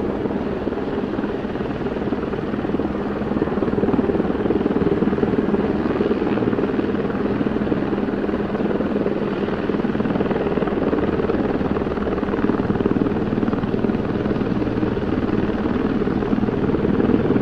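Two helicopters hovering, one close and one farther off: steady rotor chop and turbine noise with a held engine tone, swelling slightly a few seconds in.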